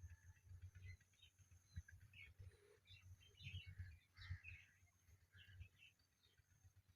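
Faint, scattered short chirps from an Indian ringneck parrot, thickest a few seconds in, over a soft uneven low rumble.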